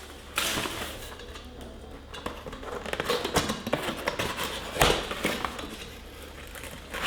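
Packaging being handled and opened by hand: rustling and crinkling with scattered knocks and clinks, the sharpest a little past three seconds in and just before five seconds in.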